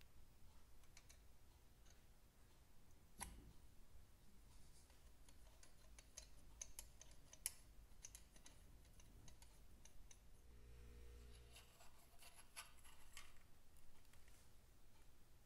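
Faint, scattered metallic clicks and taps of new pushrods being slid down the pushrod tubes and seated into the cam follower cups of a 1951 Vincent Rapide engine, the sharpest tap about three seconds in and a small flurry of clicks near the end.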